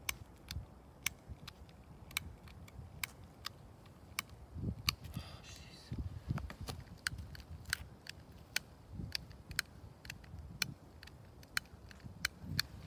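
A lighter clicked over and over, sharp clicks about twice a second at an uneven pace, striking only quick bursts of flame that don't last: the lighter is failing to keep a flame. Soft handling bumps sound underneath.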